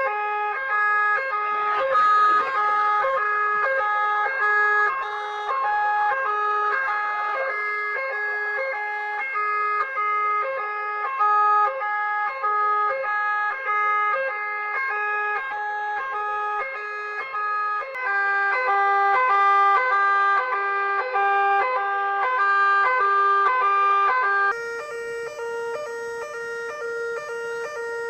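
School fire alarm sounders giving the French general evacuation signal, a loud two-tone alarm that switches rapidly and evenly between two pitches. The tone pattern shifts twice, about 18 s and about 25 s in.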